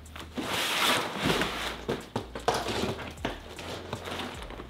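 Plastic packages of soft-plastic fishing lures and cardboard boxes rustling and crinkling as they are handled, with a few light knocks.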